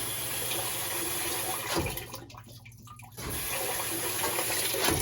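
Water rushing into a washing machine's tub, starting and stopping suddenly: about two seconds of it, a pause of about a second, then another run of about two seconds.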